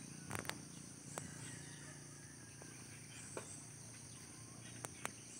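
Faint, steady high-pitched drone of insects in the surrounding vegetation, with a few sharp ticks scattered through.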